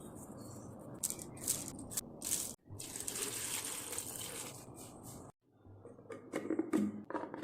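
Kitchen preparation sounds: a few sharp clinks and rattles of utensils, a stretch of steady hiss in the middle, and a cluster of knocks near the end, broken by sudden cuts.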